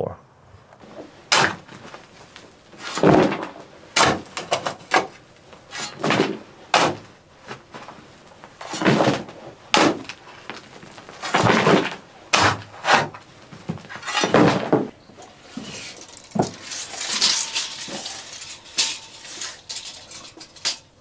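Shovel digging into packed soil and stones on a dirt floor, with dirt tipped into a wheelbarrow: a string of scrapes and thuds, one every second or so.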